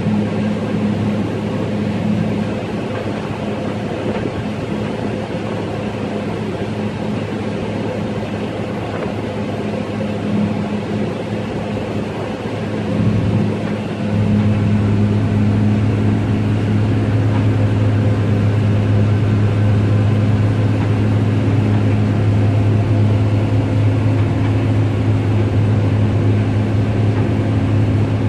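New Holland CR9060 combine running under load while harvesting, heard from inside the cab: a steady mechanical drone with a low hum that grows louder about fourteen seconds in. The monitor shows the engine at about 58% load.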